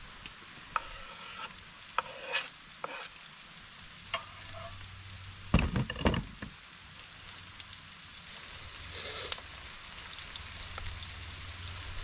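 Outdoor cooking sounds: a steady frying sizzle from a pan on a camping gas stove, with light clinks and scrapes. A cluster of knife knocks on a wooden cutting board comes about five and a half seconds in.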